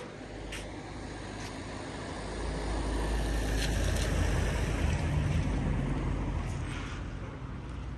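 A road vehicle passing, its low engine and tyre rumble swelling to a peak about halfway through and then fading.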